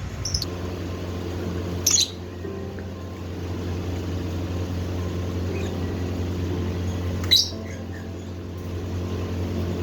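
Lovebirds giving a few short, sharp, shrill squawks, a faint one just after the start and louder ones about two seconds in and near the end, over a steady low hum.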